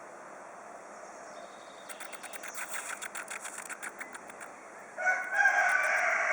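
A fast run of clicks, about eight a second, from a spider being disturbed. About five seconds in, a louder drawn-out pitched call cuts in and lasts under two seconds.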